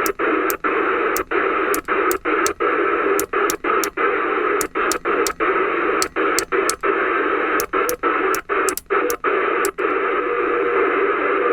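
Q60 CB radio's FM receiver giving out steady static hiss through its speaker, muting for an instant with a click about twenty times as it is stepped from channel to channel, then hissing unbroken on one channel. Only static is heard on every channel: no stations are on.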